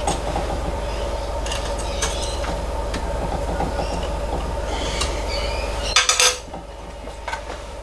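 Light metal clinks and clicks from handling steel parts and tools, over a steady machine hum. The hum stops about six seconds in, just after a quick cluster of clatter.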